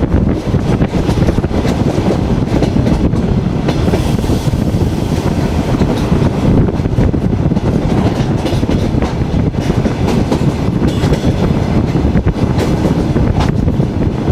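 Passenger railway carriage running along the track, heard from its window: a steady loud rumble with wheels clicking over rail joints.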